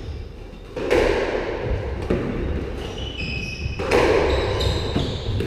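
Squash rally: two loud hits of the ball, about a second in and again near four seconds in, each ringing in the enclosed court, with short squeaks of court shoes on the wooden floor in between.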